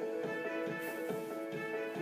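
Background music with quickly repeated plucked notes over held tones.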